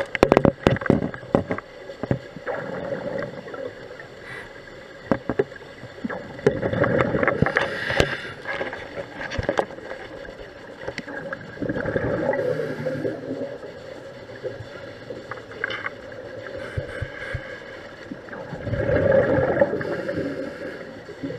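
Scuba regulator breathing underwater: three bubbling exhalations, each about a second and a half long and roughly six seconds apart. A cluster of sharp clicks and knocks comes in the first second.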